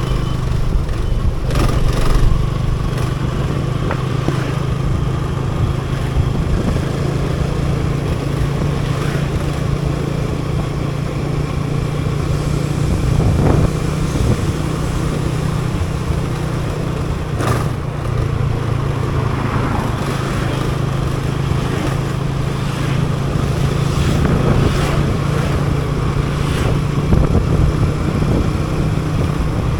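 Motorcycle engine running steadily while riding, with road and wind noise and a few brief clicks.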